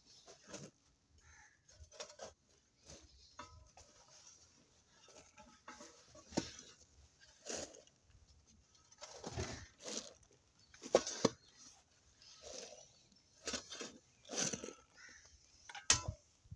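A short-handled hoe scraping and pushing dry, loose earth into a small hole to fill it, in irregular strokes with soft thuds of falling soil; the strongest strokes come about two-thirds of the way in and just before the end.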